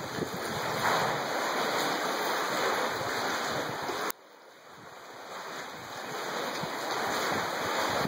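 Wind on the microphone over waves washing against a stone seawall, a steady rushing noise. It drops off abruptly about halfway through, then slowly builds back up.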